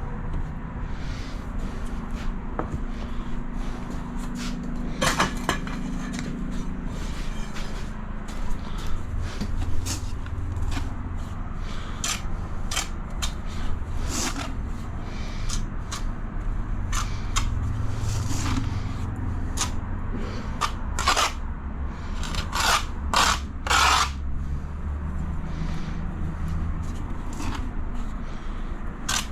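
Short scrapes, clicks and knocks of tiling work, tools and tiles being handled, with a low steady hum underneath and a cluster of louder knocks near the end.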